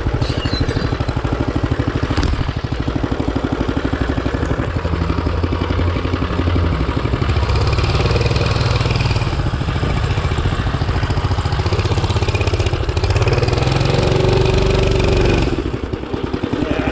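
Hisun 196cc single-cylinder engine on a Coleman CT200U-A mini bike running rough and uneven, its revs swelling and sagging, with a sharp drop near the end. It cannot hold a consistent speed, which the owner puts down to the VM22 carburetor.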